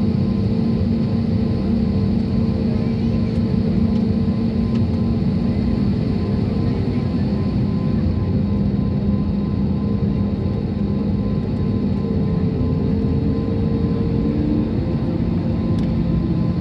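Airliner cabin noise: a steady rush of jet engine and airflow with a low drone of several held tones, which shift slightly in pitch near the end.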